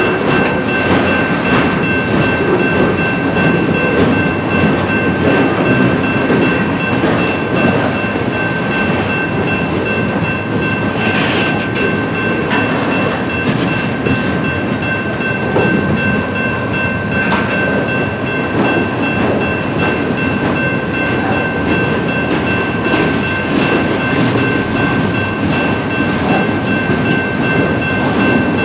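Loaded railroad flatcars rolling past at steady speed, a continuous rumble of steel wheels on the rails with a few sharp clacks. Two steady high tones ring over it throughout, from the grade-crossing warning bell.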